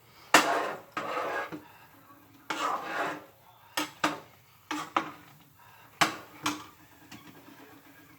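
Kitchen utensils and dishes clinking, knocking and scraping, about ten separate clatters with the loudest about half a second in. A faint steady hum runs under the second half.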